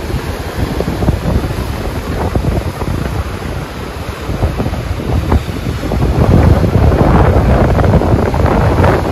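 Sea surf breaking and washing over rocks, with wind buffeting the microphone. It grows louder about six seconds in.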